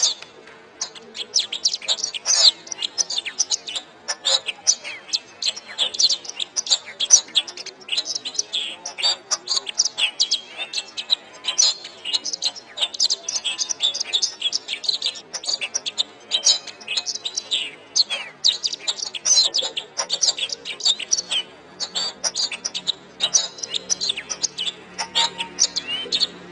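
Domestic canary singing a long, rapid song of chirps and trills with no pauses.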